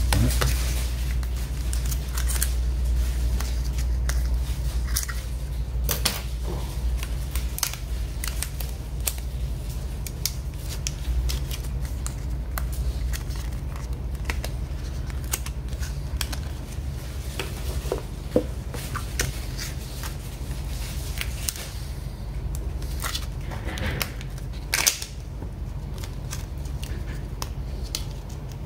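Sealed plastic packaging of RAM modules being opened by hand: scattered clicks and crackles of plastic over a steady low hum.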